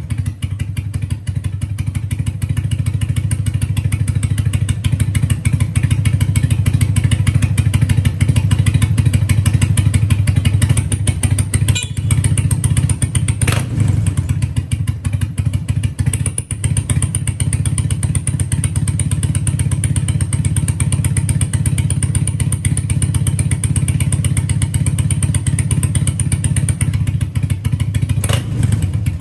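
BMW R100RS air-cooled flat-twin engine running steadily through a short aftermarket silencer with an inner baffle, a low, even exhaust note. A few sharp knocks sound partway through.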